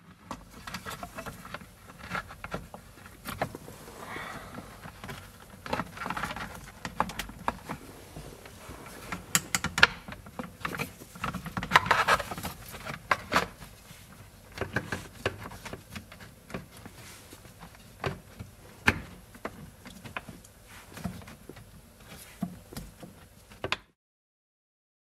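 Plastic steering-column shroud halves of an Alfa Romeo 105-series GT Junior being worked into place around the column by hand: irregular clicks, knocks and plastic rubbing on plastic, stopping abruptly near the end.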